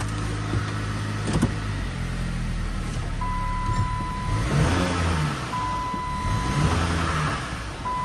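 Dodge Caliber's engine running with a low drone, steady at first, then wavering up and down in repeating swells from about halfway: the odd 'zonky' noise that seems to come from the engine. A steady electronic beep sounds in pulses about a second long.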